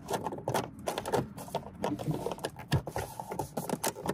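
Hand pressing and patting a plastic dashboard cap down onto a Chevy Impala's dash: a run of irregular plastic taps, clicks and knocks as it is pushed into its clips.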